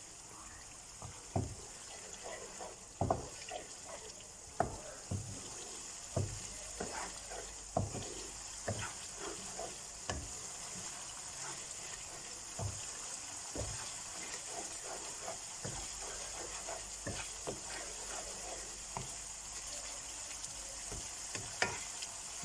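Onion-tomato masala sizzling in a pan as it is stirred, with irregular sharp knocks and scrapes of the spoon against the pan.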